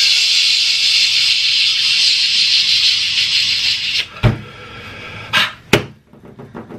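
A steady hiss that cuts off suddenly about four seconds in, followed by a thump and two sharp knocks.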